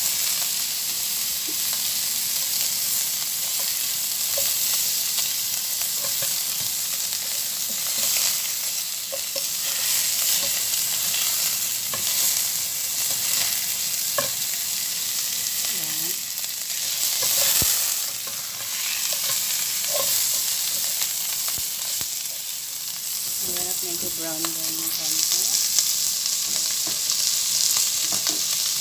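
Beef chunks sizzling as they fry in a nonstick pot, stirred and turned with a silicone spatula, with scattered light scrapes and taps over a steady hiss.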